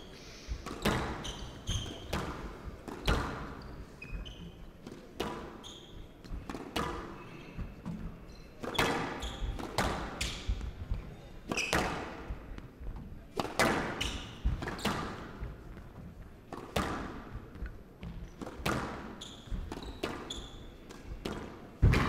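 Squash rally: the ball cracks off the rackets and smacks against the court walls at an irregular pace of one to two hits a second, with short squeaks of court shoes on the wooden floor between shots.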